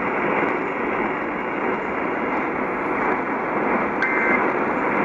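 Steady hiss of radio static from a broadcast receiver. About four seconds in comes a short, shrill two-tone data burst: the first of the Emergency Alert System's end-of-message bursts that close an alert.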